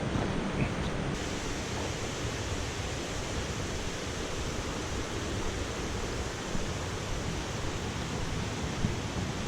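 Large waterfall pouring, a steady, even rush of falling water.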